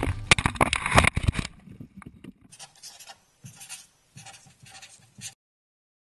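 Water buffalo hooves thudding and scuffing on dry, dusty dirt right at the microphone for about the first second and a half, then quieter, patchy scuffing that cuts off a little after five seconds in.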